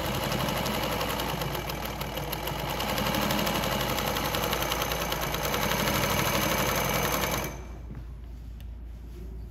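Consew 146RB-1A-1 walking-foot zigzag industrial sewing machine running steadily at speed, stitching through four layers of very thick canvas. It stops suddenly about seven and a half seconds in, leaving only a low steady hum.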